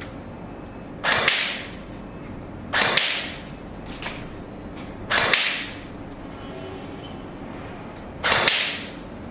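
Ares TAR-21 airsoft electric gun (AEG) firing aimed single shots: four sharp cracks and one fainter one, a second or two apart, each dying away in about half a second.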